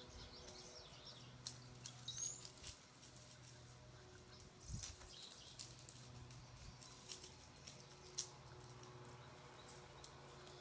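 Faint scuffling and light patter of puppies playing on gravel and rocks, with a few brief high chirps about two seconds in, over a faint steady hum.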